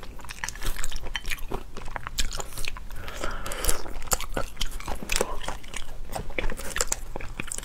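Close-miked biting, crunching and chewing of boiled crayfish, shell and meat: a dense, irregular run of sharp cracks and clicks.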